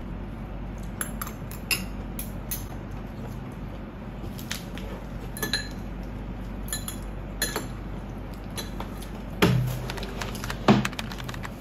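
Metal chopsticks and a metal spoon clinking and tapping against ceramic bowls and dishes while eating: scattered light clicks, then two louder knocks with a short ring near the end.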